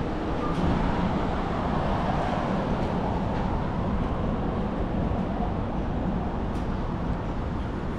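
Steady city street noise: road traffic, with a Keihan commuter train on the elevated railway overhead.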